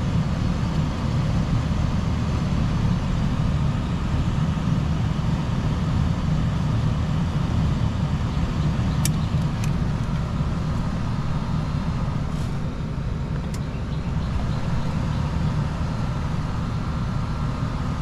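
Steady low hum and rumble of running air-conditioning equipment, with a faint steady whine above it and a few light clicks about halfway through.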